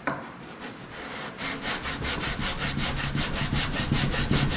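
Hand sanding block rubbed back and forth over a small wooden window piece, squaring it up. Quick, even strokes, several a second, begin about a second and a half in.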